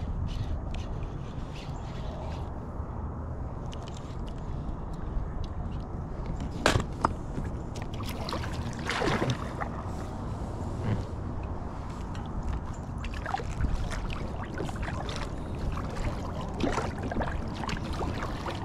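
Water sloshing and lapping against a small inflatable boat, over a steady low rumble, with scattered light knocks and clicks, the loudest about seven and nine seconds in.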